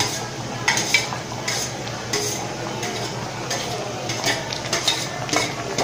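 Metal ladle scraping and clinking against a stainless-steel plate and pot as chopped green onions are pushed into the pot and stirred. The clinks come irregularly, about eight sharp ones over a few seconds.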